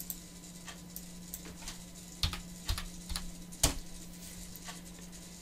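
Computer keyboard keystrokes clicking at irregular intervals, the loudest about three and a half seconds in as the Enter key is pressed, over a steady low hum.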